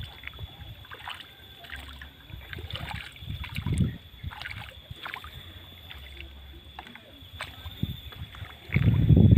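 Canoe paddle dipping and pulling through lake water, with small splashes and drips off the blade, over a faint steady high tone. A loud low rumble comes near the end.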